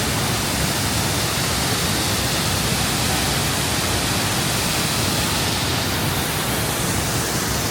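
Düden waterfall's falling water rushing in a steady, unbroken wash of noise.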